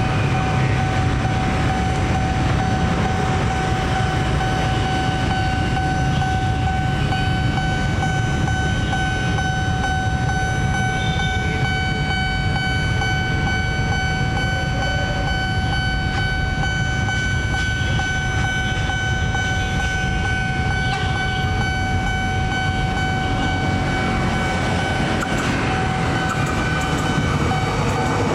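Electric commuter train approaching with a steady low rumble. A steady high tone holds at one pitch and fades near the end, as the wheel-and-rail noise grows louder with the train drawing up close.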